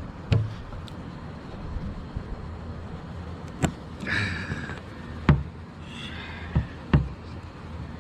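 A handful of sharp knocks and clunks, five in all, with two short squeaks between them, over a steady low hum.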